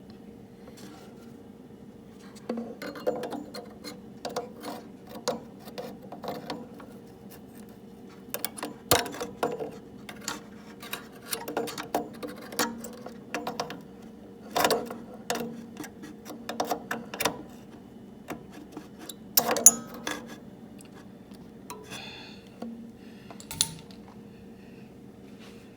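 Irregular metallic clicks, clinks and light knocks of small parts and wire being handled on a workbench, with a few sharper knocks.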